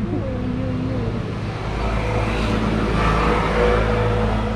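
A car passing on the street, its engine and tyre noise swelling to a peak about three seconds in and then easing off, over a steady low hum.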